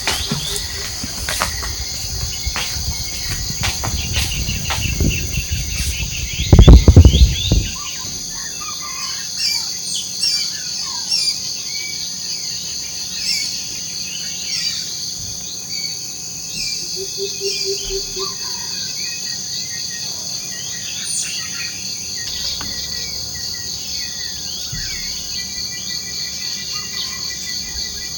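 Tropical forest morning chorus: a steady high drone of insects with many birds chirping and calling over it. About seven seconds in, a loud low rumble lasts about a second.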